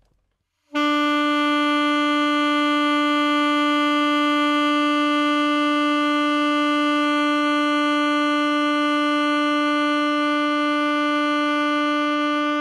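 Alto saxophone sounding one long, loud note, held steady at the same pitch from about a second in without breaking. It is played as a projection exercise, the player blowing the sound at a distant point to make the tone full and big.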